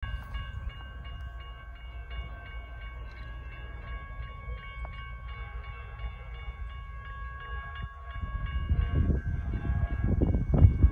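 Railroad grade-crossing bell ringing, with quick, even, repeated strikes throughout. From about eight seconds in, a low rumble swells in waves and grows louder.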